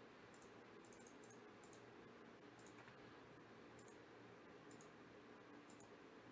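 Faint computer mouse clicks over low room hiss: a handful of short ticks, some in quick pairs, at irregular intervals as a web page's button is clicked repeatedly.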